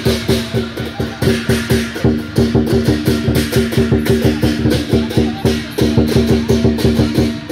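Lion dance percussion: a drum beaten in a fast, steady rhythm of about five strokes a second, with clashing cymbals and steady ringing tones underneath.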